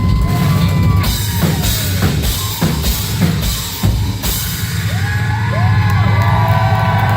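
Live rock bass solo: a loud electric bass holds heavy low notes while a drum kit hits a run of sharp strokes in the first half, followed by sliding, bending high notes over the sustained bass.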